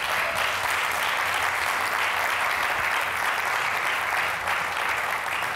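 A congregation applauding steadily, a dense even clapping with no voices over it.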